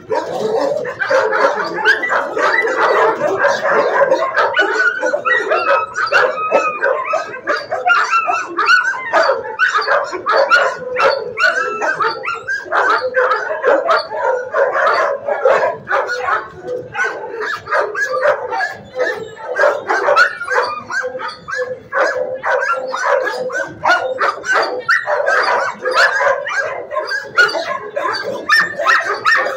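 Many shelter dogs barking at once, a dense, continuous din with no pause.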